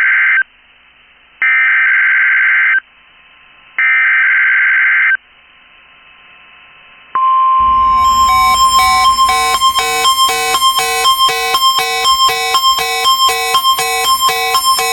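The NOAA Weather Radio SAME header: three bursts of screeching digital data tones about a second long, each followed by a short pause. About seven seconds in, a steady alert tone near 1 kHz starts, and a loud pulsing multi-tone beeping alarm joins it almost at once and keeps going underneath.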